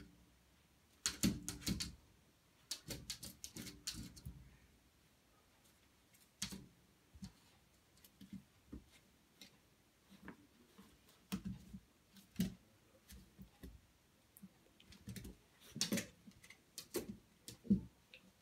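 Golden retriever puppy pawing at a mirrored sliding closet door: irregular clusters of light taps, knocks and clicks from its paws and claws on the glass, the door frame and the hardwood floor.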